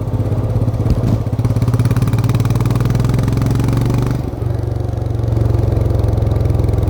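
Royal Enfield Himalayan 411's single-cylinder engine running under way, heard onboard, with a steady pulsing exhaust note. About four seconds in the level dips briefly and the note shifts before it settles again.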